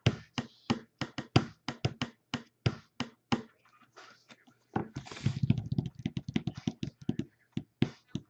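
Sharp taps made by hands, several a second in an uneven, drumming rhythm, with a denser run of heavier low knocks about five seconds in.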